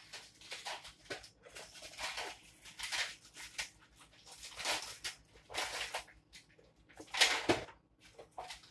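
Metal spoon scraping the seedy pulp out of a granadilla's rind in repeated wet strokes, about one a second, with one louder stroke a little after seven seconds.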